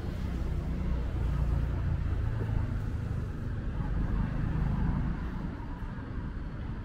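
Street traffic: vehicle engines running and passing, a steady low rumble that swells a couple of times as vehicles go by.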